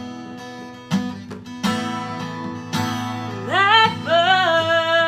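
Acoustic guitar strummed, with chords struck roughly once a second. About three and a half seconds in, a singing voice slides up into a long held note with vibrato.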